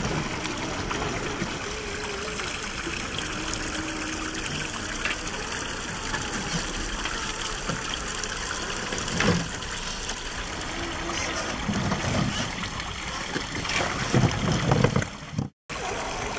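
Steady rush of running stream water, with a few knocks and low thumps that are loudest about two seconds before the end.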